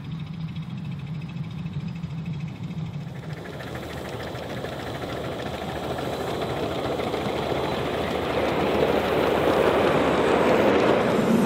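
Ride-on miniature steam train running on its track. A low steady hum fills the first few seconds, then the rolling of wheels on rails grows steadily louder as the train approaches and passes.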